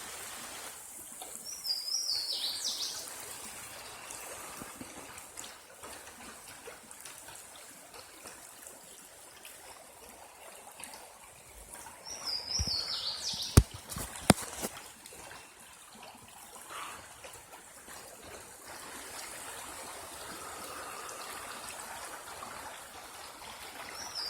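Water trickling steadily, with a short, high, falling bird song repeated three times about eleven seconds apart. Two sharp clicks come a little past the middle.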